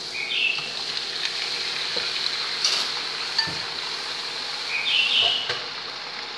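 Marinated chicken pieces tipped into hot oil and fried garlic in a frying pan, sizzling steadily, with a few sharp clicks of chopsticks on the bowl and pan. Two short rising chirps come through, about half a second in and again near five seconds.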